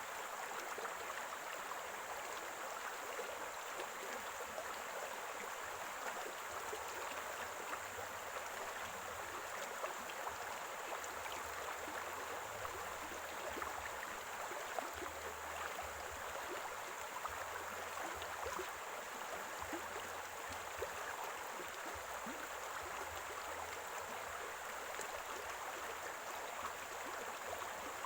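Small stream of spring water running steadily over rocks, gurgling with many small splashes.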